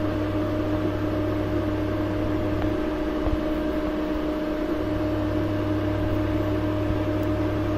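Steady electrical hum of a running appliance or fan, with a constant whine over it. The deepest part of the hum drops out for about two seconds in the middle and then returns.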